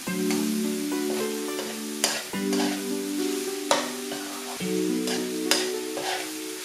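Food sizzling as it fries in a pot, stirred with a utensil that scrapes the pot several times, over steady background music.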